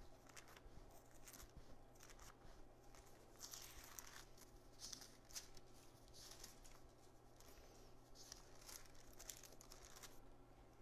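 Faint rustling of thin Bible pages being leafed through, several soft brushes a second or so apart, over a low steady hum.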